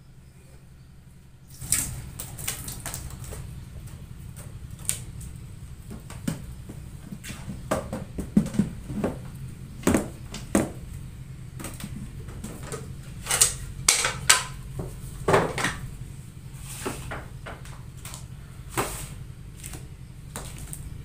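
Irregular knocks, clicks and rustles of household objects being picked up and set down on a shelf unit, some of them sharp, over a steady low hum.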